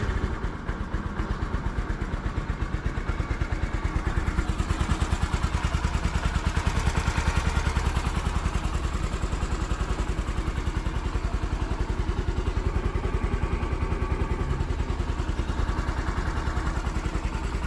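Bajaj Discover 125 ST's single-cylinder 125 cc four-stroke engine idling with a steady, even pulse, just started after sitting unused for several days. It comes up slightly over the first few seconds, then holds.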